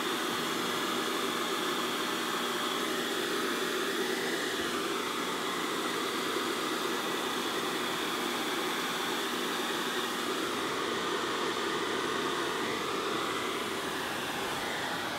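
Handheld hairdryer running steadily on a strong setting, a constant rush of air with a faint steady hum and high whine, fitted with a makeshift taped cone on its nozzle.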